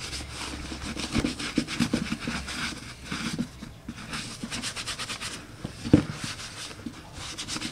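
Soapy scouring sponge rubbed briskly over a Bestard leather mountaineering boot, a rapid scratchy back-and-forth rubbing, with one louder knock late on.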